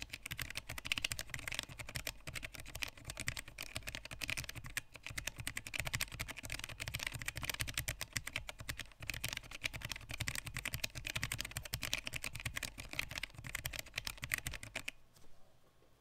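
Fast typing, about 112 words a minute, on a handwired low-profile mechanical keyboard with Kailh Choc Pro Red linear switches and 3D-printed keycaps: a rapid, continuous clatter of keystrokes that stops about a second before the end.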